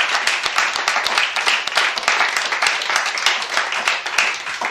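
Audience applauding, many hands clapping at a steady level that eases slightly near the end.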